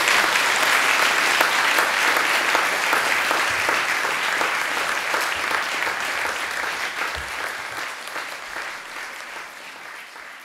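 Audience applauding, a steady clatter of many hands that gradually fades away over the second half.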